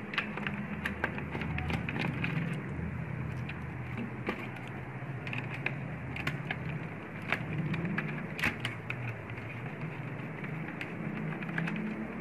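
Small scattered clicks and scrapes of a screwdriver working on screws and plastic parts inside an opened projector, over a steady low hum. One sharper click comes a little past the middle.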